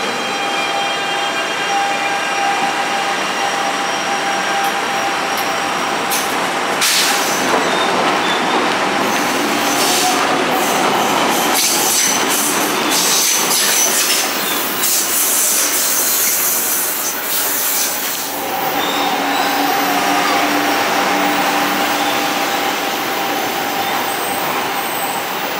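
SuperVia electric commuter train running on the rails: a steady rumble and rattle of wheels on track, with a run of sharp clicks through the middle and a steady humming tone in the last third.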